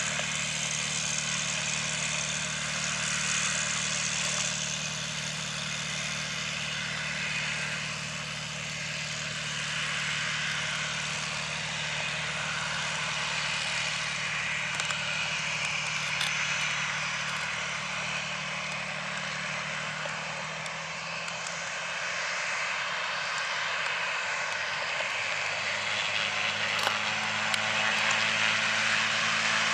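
Boeing 737-700's CFM56 jet engines running at takeoff power, a steady broad rush with a low hum beneath it that grows somewhat louder near the end.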